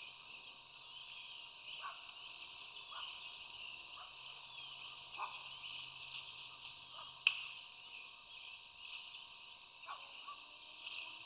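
Steady chorus of calling frogs, a dense high trilling, with scattered short calls below it. There is a single sharp click about seven seconds in.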